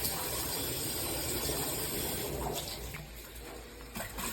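Water spraying from a MakeFit filtered handheld shower head: a steady hiss of running water that eases for a moment about three seconds in.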